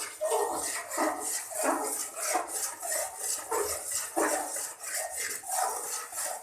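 Spoon scraping a pan in repeated strokes, about one every half-second, as ground chana dal is stirred and roasted.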